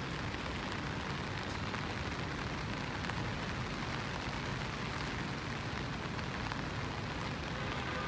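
Steady rain falling in an even hiss, with faint scattered drop ticks and a low rumble underneath.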